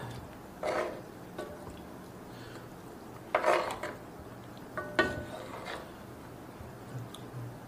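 Wooden utensil stirring and lifting curry noodles in a pan of broth: three short wet swishes, with a few light knocks against the pan.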